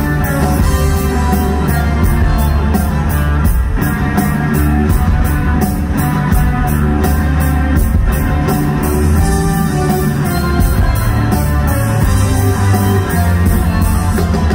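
Live rock band playing loud amplified music, electric guitars over a steady drum beat, heard from the audience in a large concert hall.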